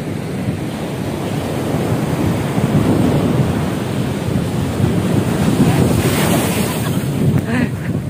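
Sea surf breaking on a sandy, rocky shore, with strong wind buffeting the microphone.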